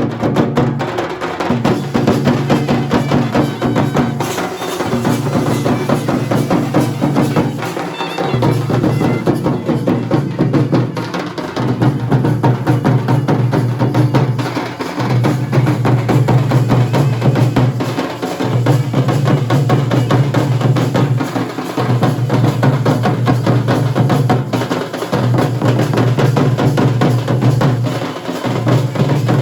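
Dhol and nagada drums played in fast, continuous strokes. Under them a deep, steady low tone sounds in phrases of about three seconds, breaking roughly every three to four seconds.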